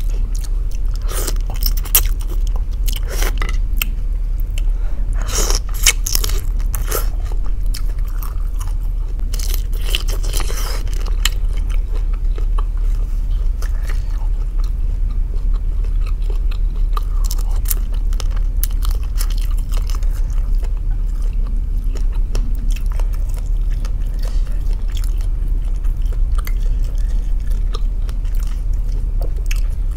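A person chewing and biting crunchy food, with sharp crunches thickest in the first dozen seconds, then sparser, softer chewing. A steady low hum runs underneath.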